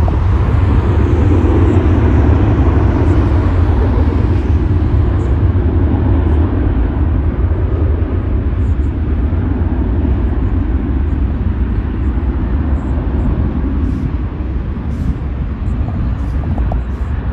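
Wind buffeting the microphone, mixed with the steady rumble of a twin-engine jet airliner's engines on the runway.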